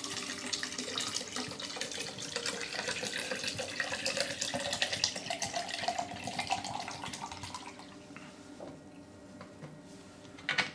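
Green membrane preservation liquid poured from a plastic bottle into the clear plastic housing of a reverse-osmosis water filter: splashing and gurgling, with a tone that rises in pitch as the housing fills. The pour tails off about eight seconds in, and a brief knock follows near the end.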